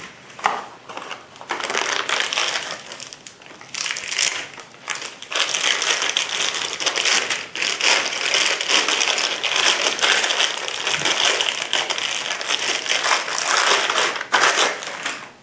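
Clear plastic bag being crinkled and pulled off a rifle scope: a dense crackling in quick bursts that builds up a second or so in and is heaviest through the second half.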